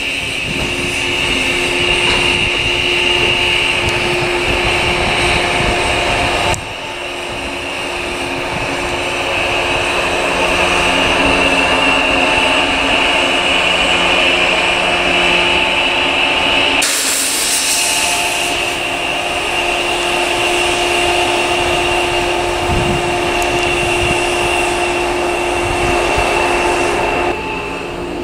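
Shinano Railway 115-series electric train giving a loud, steady mechanical whine and hum made of several held tones. The sound changes abruptly twice, about six and seventeen seconds in.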